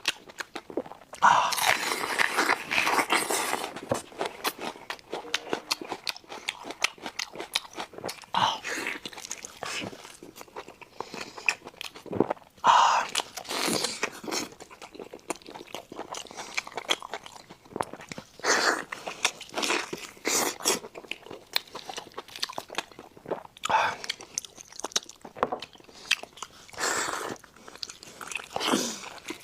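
A person biting and chewing crunchy food close to the microphone: clusters of sharp crunches and crackles, the loudest bites coming about a second in, around the middle, and again about two-thirds of the way through.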